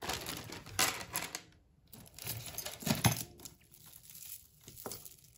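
Costume jewellery handled and sorted: metal chains, a rhinestone necklace and beads jingling and clinking, with a louder clack about three seconds in.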